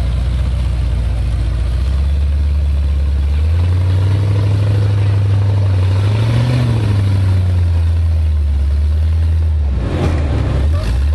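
Prototype trial buggy's engine working under load as it crawls over stacked tyres: the note climbs a few seconds in, peaks midway and drops back, with a couple of brief knocks near the end.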